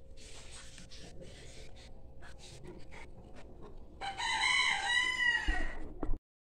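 A rooster crows once, a long call starting about four seconds in that holds its pitch and then falls away, and is cut off abruptly just before the end. Before it there is only soft rustling with a few light clicks over a faint steady hum.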